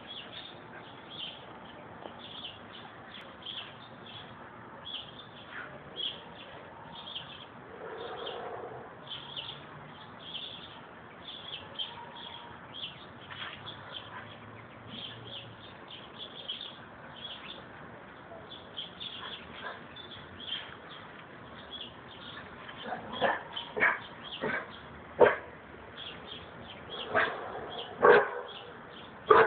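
A dog barking in a string of short, sharp barks, about seven of them, starting in the last quarter, apparently at a basketball lying in the yard that frightens it. Small birds chirp repeatedly throughout.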